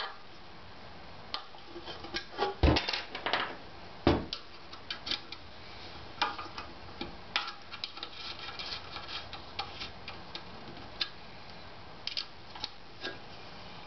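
Irregular clicks and light knocks of small hardware being handled and fitted by hand onto a printer bed plate, with two louder knocks a few seconds in.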